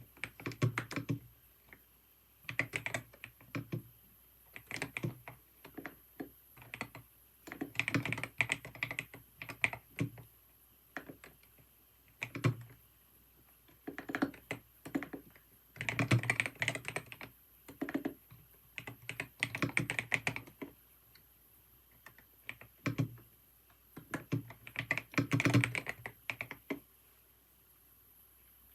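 Typing on a computer keyboard: rapid key clicks in bursts of a second or two, broken by short pauses, stopping near the end.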